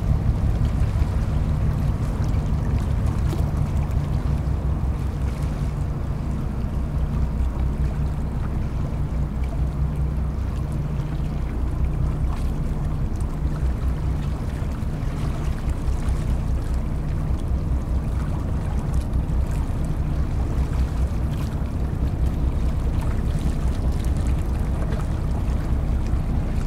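Harbour tugboat's diesel engines running under load with a steady low drone while it tows a container ship on a line from the bow.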